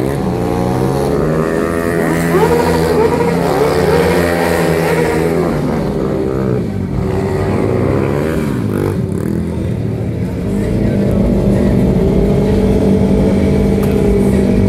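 Sport motorcycle engines revving up and down repeatedly during stunt riding, then running at a steadier pitch for the last few seconds.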